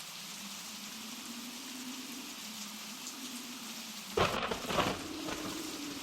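Blizzard wind howling over a steady hiss, the howl wavering in pitch. About four seconds in come two sudden loud knocks, about half a second apart.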